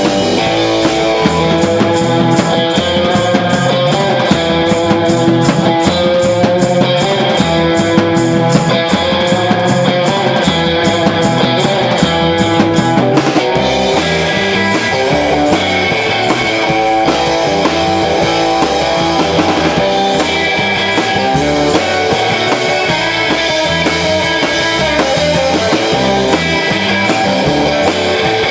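Live rock band playing an instrumental on electric guitars and a drum kit through amplifiers. A fast, steady cymbal beat runs through the first half and changes about halfway through.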